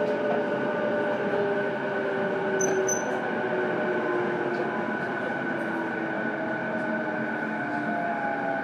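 JR East E233-8000 series electric train running, heard from inside one of its motor cars: steady wheel-and-rail roar with the traction motors' whine sliding slowly in pitch as the speed changes. Two brief high chirps about three seconds in.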